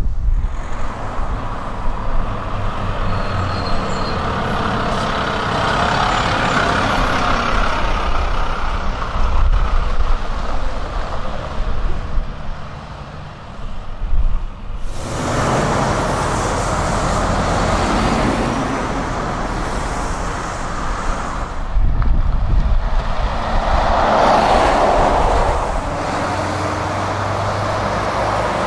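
Renault diesel lorries, articulated and rigid, running past on the road: engine noise and tyre rumble, louder as each truck goes by. The sound changes abruptly twice.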